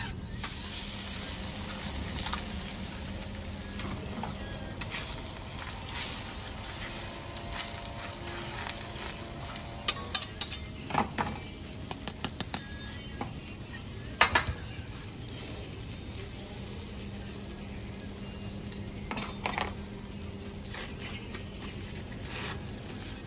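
Beef burger patties and an egg frying on a flat steel griddle with a steady sizzle. Metal spatulas scrape and tap on the griddle now and then, with a cluster of sharp clicks a little past the middle.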